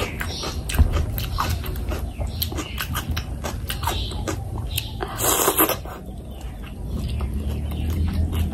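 Close-miked wet chewing and lip smacking of oily fish curry, with many small clicks and squelches from fingers working the saucy fish pieces. A louder wet burst comes about five seconds in.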